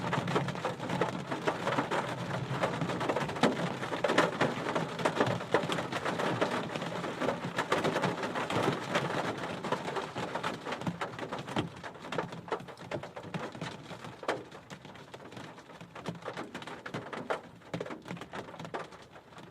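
Heavy rain splattering on a car roof, heard from inside the car: a dense patter of drop impacts on the metal roof. It thins out and grows quieter over the last several seconds.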